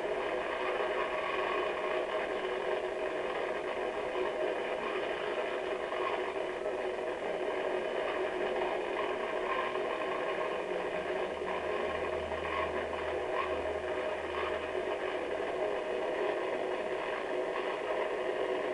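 A steady mechanical whir with hiss, even in level, with a low hum for a few seconds in the middle; no screams or voices stand out.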